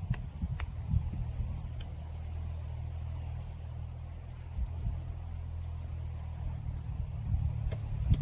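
Wind buffeting the microphone in a low, uneven rumble, with a steady high-pitched insect trill and a few faint clicks.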